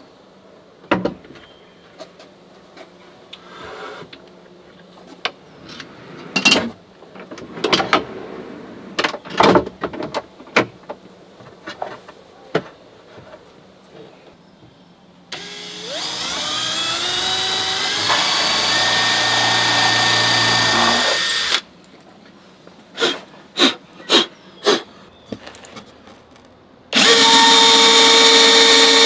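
Scattered knocks and clatter of workshop handling, then an electric power tool motor spinning up, its pitch rising, running for about six seconds and stopping abruptly. After a few more knocks, a power tool starts suddenly near the end and runs at a steady pitch.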